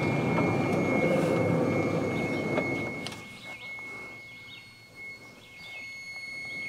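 Wood-Mizer portable band sawmill machinery running, a dense mechanical noise that drops off sharply about three seconds in, leaving a quieter hum with a thin steady high whine. Birds chirp faintly in the quieter part.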